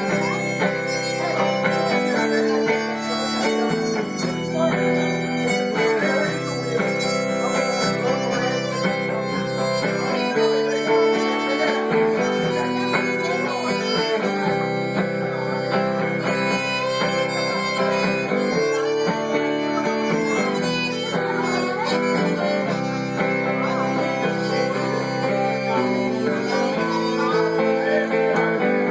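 Live country music: an instrumental break between verses, a lead instrument playing held melody notes over strummed guitar.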